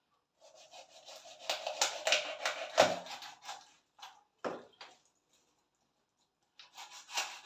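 Kitchen knife cutting on a wooden cutting board: a run of scraping cutting strokes, then a few separate sharp knocks about halfway through, and more cutting near the end.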